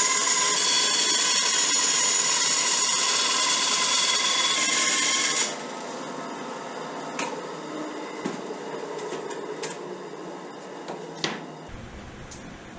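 Bandsaw running and cutting plywood, a loud steady whine with several tones. About five and a half seconds in it stops abruptly, leaving much quieter shop noise with a few light clicks and knocks.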